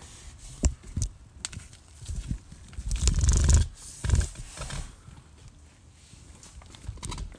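Scattered knocks and clicks, with a louder, longer rumbling scrape about three seconds in.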